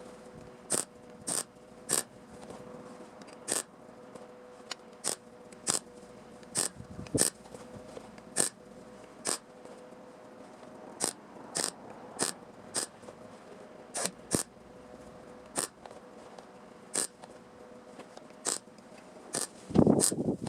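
Hand snips cutting sheet metal: a sharp snip roughly once a second at an uneven pace, over a faint steady hum. A louder clatter comes near the end.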